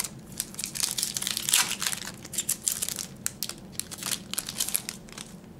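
Foil trading-card pack wrapper crinkling and tearing as it is pulled from the box and ripped open by hand, in a dense run of crackles that thins out near the end.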